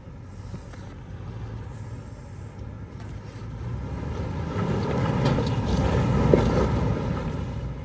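Toyota Land Cruiser's V8 engine working at crawling speed over rocks, the throttle building from about halfway through as the SUV is pushed up over a rock under its rear wheel, then easing off near the end. A short sharp knock comes about six seconds in, at the loudest point.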